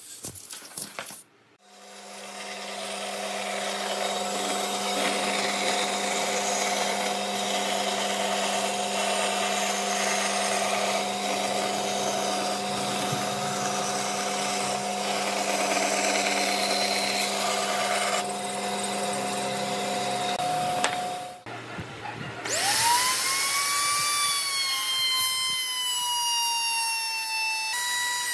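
Bandsaw running with a steady motor hum while its blade cuts a circle out of a wooden board. About 21 seconds in it stops, and a handheld trim router spins up with a sharply rising high whine and runs while trimming the edge of a round wooden disc.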